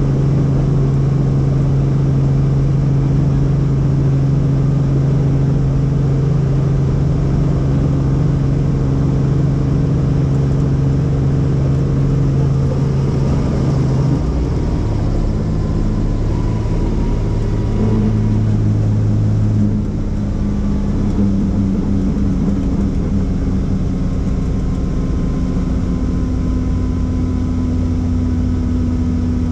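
Helicopter's engine and rotor running, a steady loud drone with a low hum whose pitch shifts about halfway through and again a few seconds later.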